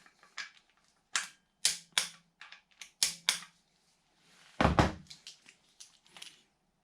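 Hand tools and bolts working on an engine: a series of separate sharp metallic clicks, with one heavier clunk a little past the middle.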